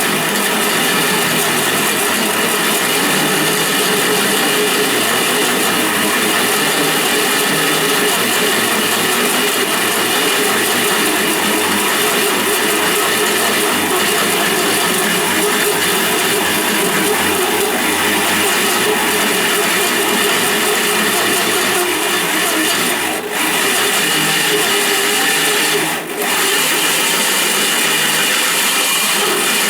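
Electric drill turning a carbide-tipped hole saw through a hard cut, a loud steady grinding run. The drill briefly eases off twice in the last third.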